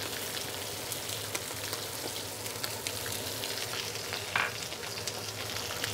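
Whole red snapper frying in hot oil in a wok: a steady sizzle dotted with small crackles and pops, with one louder crackle a little past four seconds in.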